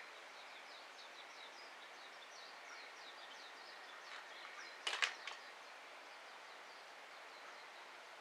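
Small wood-burning stove fire with a steady faint hiss, giving one sharp crackling pop with a smaller snap right after about five seconds in. Faint high chirps, like a small bird, repeat quickly in the background.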